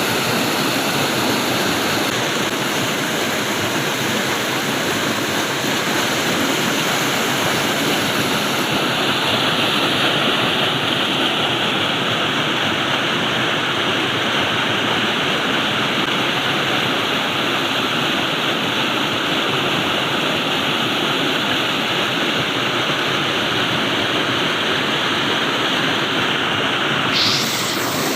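Flowing water rushing steadily, like a stream or small waterfall, as an even hiss. Its tone shifts slightly about a third of the way in and again briefly near the end.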